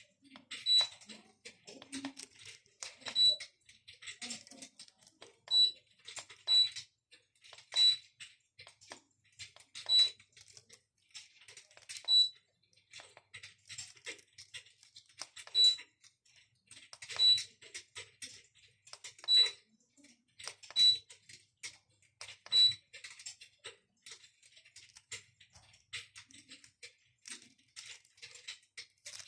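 Electric fireplace's crackling-log sound effect: irregular sharp pops and snaps, a loud one every second or two with softer crackles between, like burning wood.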